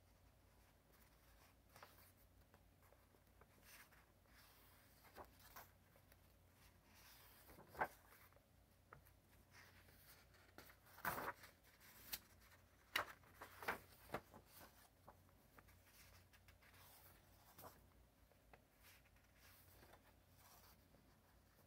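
Sketchbook pages turned by hand: soft, scattered paper rustles. A few louder page flips come around the middle.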